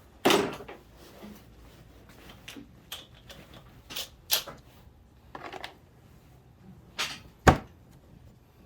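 A handful of separate clicks and knocks, like small parts and tools being handled, with a loud knock just after the start and another sharp one near the end.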